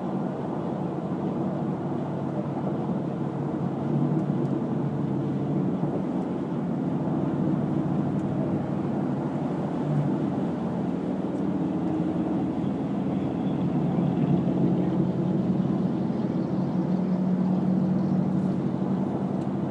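Steady road and engine noise inside a car cruising on a freeway: a low, even rumble with a faint hum, a little louder in the second half.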